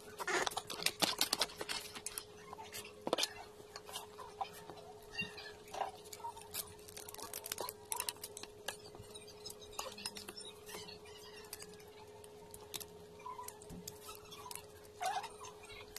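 Close-up eating sounds: wet clicks and smacks of chewing and of fingers picking through seafood, thickest in the first second or so, over a faint steady hum.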